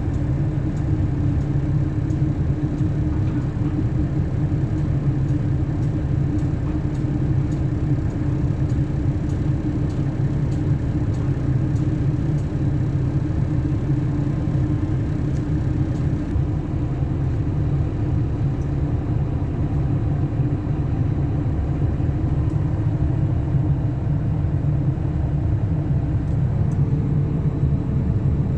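Zoomlion excavator's diesel engine running steadily as a low drone. A higher hum joins about halfway through.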